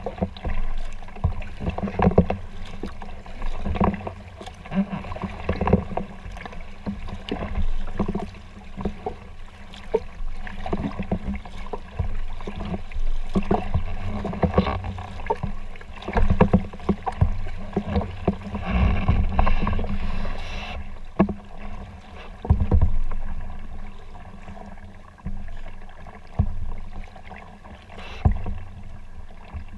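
Kayak paddling: the paddle dipping and splashing in the water, with water sloshing against the folding kayak's hull in an uneven run of splashes and knocks.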